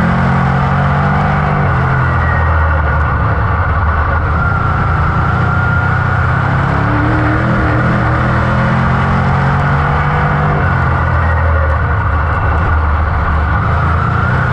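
Dirt modified race car's GM 602 crate V8 engine under racing load, heard from inside the cockpit, its pitch rising and falling as the driver comes off the throttle for the turns and back on down the straights.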